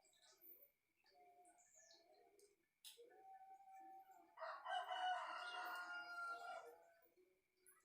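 A rooster crowing: one long crow that begins about three seconds in, swells loudest in the middle and trails off before the end. Softer bird calls come before it.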